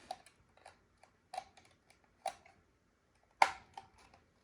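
A handful of light plastic clicks and taps, spaced irregularly, from a First Alert carbon monoxide alarm being handled. The sharpest click comes about three and a half seconds in.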